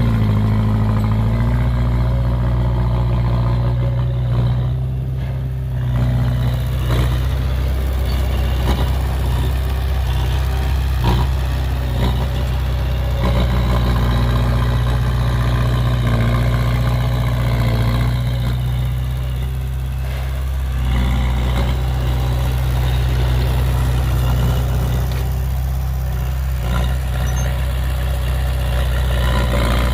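Diesel engine of heavy earthmoving equipment running steadily, mostly near idle with small rises and falls. There are a few brief knocks.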